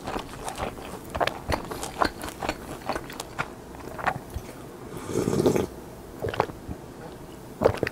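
Close-miked eating sounds from a mouthful of rice wrapped in seasoned laver: a run of short wet chewing clicks and smacks, with a longer, louder crunching burst about five seconds in.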